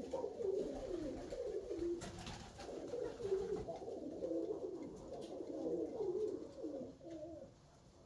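Several Alföldi-Körösi keringő (Koros tumbler) pigeons cooing, their wavering calls overlapping, with a few faint clicks; the cooing dies down near the end.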